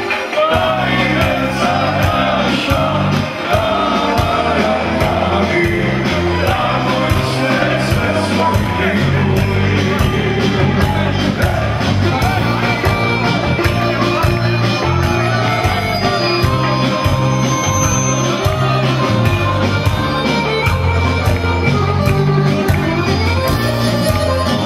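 Dance music with a steady beat, and a group of men singing and shouting along with it.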